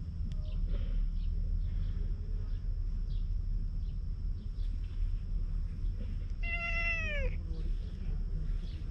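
Tabby cat giving one short meow that falls in pitch, about six and a half seconds in, over a steady low rumble.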